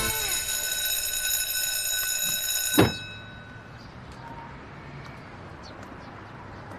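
A bell rings steadily for about three seconds, like a class bell after 'class dismissed', and ends in a sharp hit just before the three-second mark. Then there is a quiet background with a few faint clicks.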